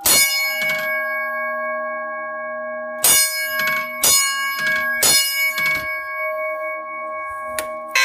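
Old firehouse single-stroke fire alarm bell, its electric striker hitting the large gong: one loud strike at the start, then three more strikes about a second apart beginning about three seconds in, each followed by a lighter tap. The gong rings on with several overlapping tones between the strikes.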